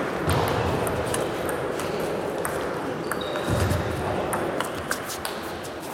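Table tennis ball being hit back and forth in a rally: repeated sharp, irregular clicks of the celluloid ball off rubber bats and the tabletop, against the echoing background noise of a busy sports hall.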